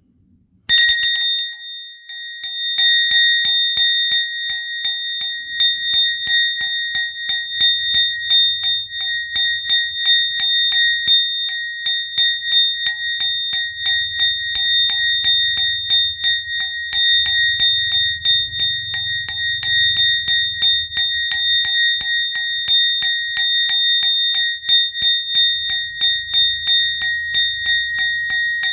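A prayer bell rung rapidly and continuously, several strikes a second, keeping up a steady bright ringing tone. It starts about a second in.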